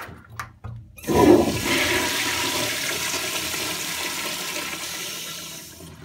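Toilet flushing. Two short clicks come first, then a sudden loud rush of water about a second in, which settles into a steady rush and tapers off near the end.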